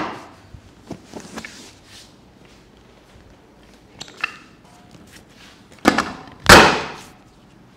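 Two loud thuds about half a second apart, from a wooden block being set down on a padded chiropractic treatment table, with a few faint knocks of handling a few seconds before.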